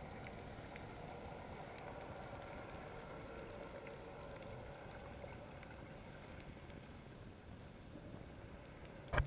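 Muffled underwater noise picked up through a handheld camera's waterproof housing as a freediver swims toward the surface, with a few faint ticks. Right at the end there is a sudden loud splash as the camera reaches the surface.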